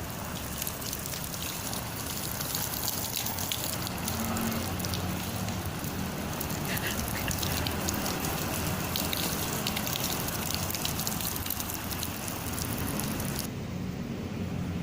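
Water spattering and running on a raincoat's water-repellent fabric: a steady hiss dotted with many small drop ticks, which turns duller shortly before the end.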